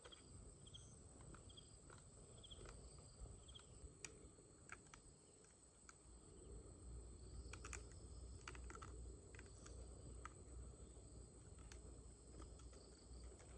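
Faint insect ambience: a steady high-pitched insect drone, with a short chirp repeated every half-second or so during the first few seconds and a few scattered small clicks.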